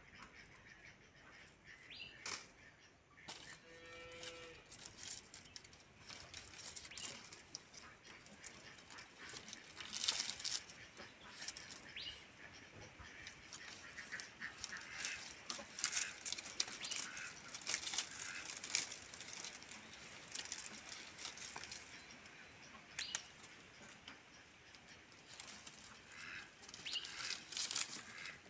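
Dry palm fronds rustling and crackling as a cat climbs down through them and steps along them, in irregular dry crackles. A brief pitched call sounds about four seconds in.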